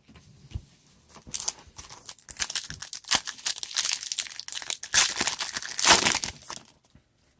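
Crinkling and crackling of a foil trading-card pack wrapper being handled and torn open, with the light clicks of cards being handled. It is loudest around five and six seconds in and stops shortly before the end.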